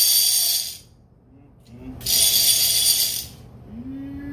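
A red conventional fishing reel's handle spun by hand, its ratchet buzzing in two bursts of about a second each with a short pause between.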